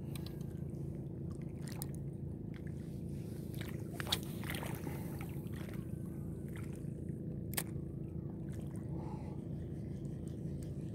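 Shimano Sedona 1000 spinning reel being cranked on a lure retrieve: a steady low whir with a few sharp clicks, the loudest about four seconds in.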